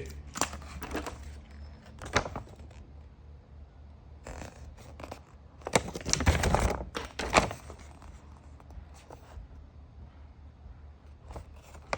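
Clicks, scrapes and rustling from handling a watch repair tool kit and its paperwork, busiest from about six to seven and a half seconds in.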